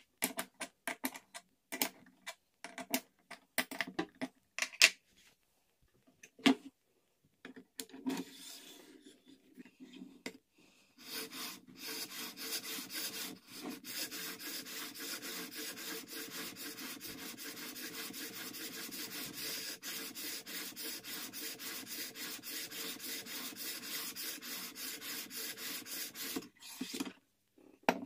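A sharpening stone on a guided jig rubbed back and forth over a steel plane iron's bevel in quick, even strokes, about four a second, for some fifteen seconds. Before the strokes start come scattered sharp clicks and knocks as the jig and stone holder are handled and set in place.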